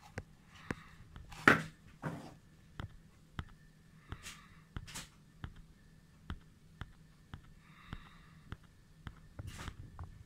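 Handling noise from a zoom eyepiece being held and turned in the hand: scattered small clicks and a few short scuffs, the loudest about one and a half seconds in.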